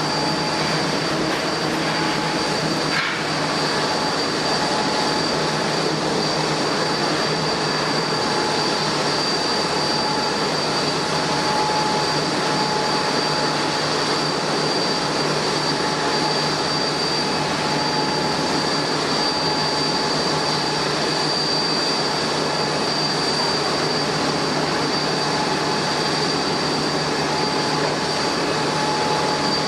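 Jet airliner engines running steadily, a high whine and a lower hum over an even rush, neither rising nor falling.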